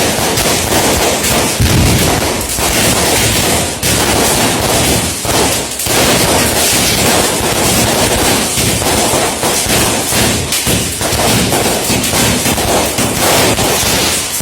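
Daytime fireworks going off in a loud, dense crackle of rapid bangs that runs on without a break, easing only briefly a few times.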